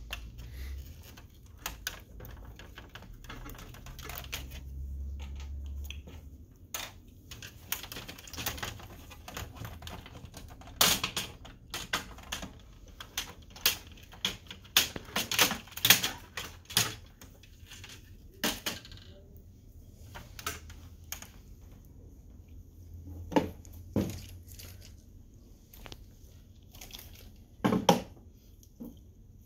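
Irregular clicks, taps and knocks of plastic and metal laser-printer parts being handled and worked loose by hand, with a few sharper knocks now and then.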